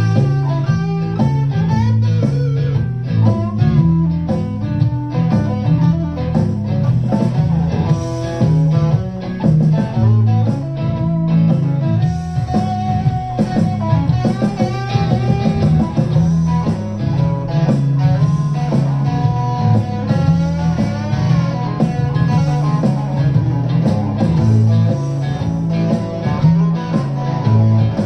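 Electric guitar played through an amplifier, improvising in a blues-rock style: quick runs of single notes over a heavy low rhythm, with some notes bent in pitch.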